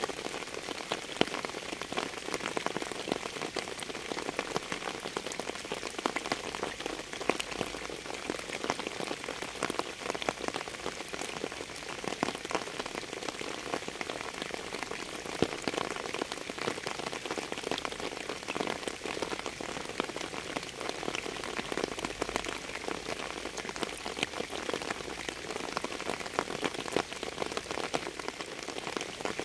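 Steady rain falling on a surface: an even hiss with many separate drop hits.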